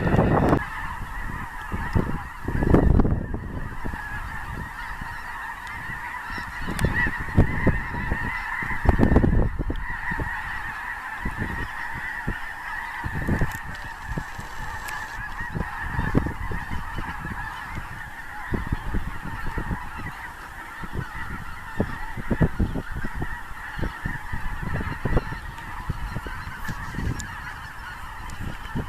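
A large flock of snow geese honking continuously, a dense chorus of many overlapping calls. Gusts of wind buffet the microphone now and then, loudest about 3 and 9 seconds in.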